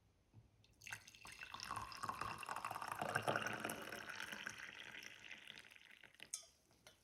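Hot herbal ginger-and-turmeric drink poured through a strainer into a cup: a stream of liquid splashing. It starts about a second in and tapers off over several seconds.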